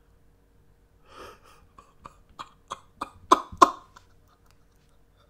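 A man laughing in disbelief: short breathy bursts, about three a second, that start about a second in and grow louder before stopping near four seconds.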